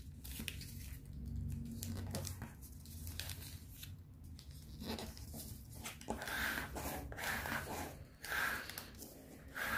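A sheet of colour paper being folded and creased by hand, with rustling and crinkling. In the second half a plastic ruler is run along the folds to press the creases flat, giving louder scraping.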